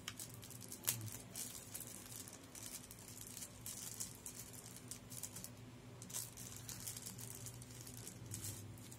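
Handling noise from a cordless phone handset and its battery pack: plastic wrapping crinkling, with light clicks and rattles of plastic parts, one sharper click about a second in. A faint steady low hum runs underneath.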